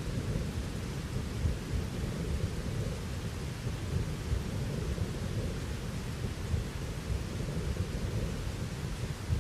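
Thunderstorm: a steady low rumble of rolling thunder under a constant hiss of rain.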